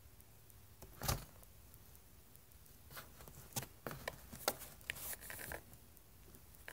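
A tabby cat bumping and pawing at the camera held close to it: a single soft thump about a second in, then a run of light scratchy taps and fur rustling against the microphone in the second half.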